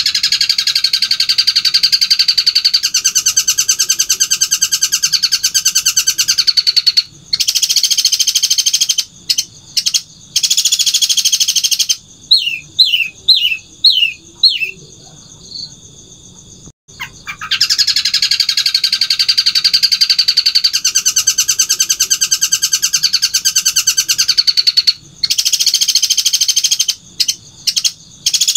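Caged long-tailed shrike (cendet) singing loudly in long bursts of very fast, rattling repeated notes lasting several seconds each: the long, powerful 'tembakan' runs that Indonesian songbird keepers prize. About halfway through it gives a short series of about six falling slurred notes, then pauses briefly before the long runs resume.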